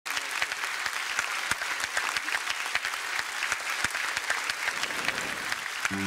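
Studio audience applauding steadily: many hands clapping at once.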